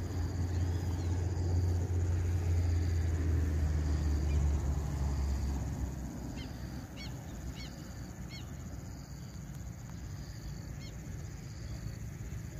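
A low, steady rumble for about the first six seconds, then a scatter of short, high bird chirps about six to nine seconds in, over a faint, evenly repeating high tone.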